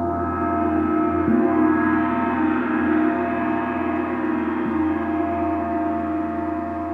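Gong ringing in a long wash of many overlapping tones over a deep hum, played with soft mallet strokes about a second in and again near five seconds.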